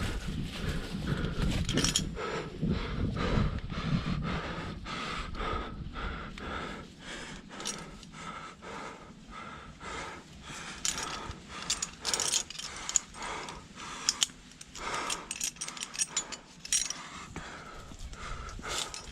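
Irregular clinks, clicks and scrapes of climbing gear and rock contact during a climb, with low rumbling handling noise in the first few seconds and heavy breathing.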